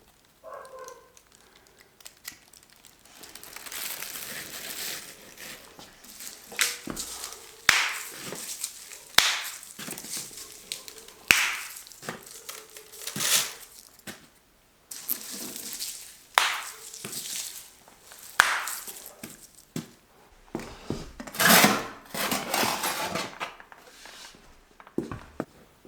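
Irregular crunching and swishing strokes in snow, about one every second or two, with a few sharp clicks between them.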